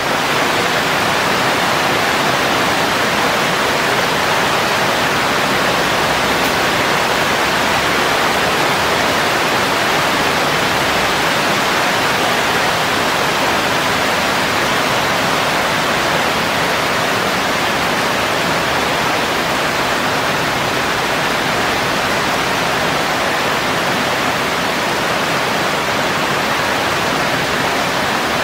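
Heavy rain falling steadily on leafy garden plants and grass: a dense, even hiss.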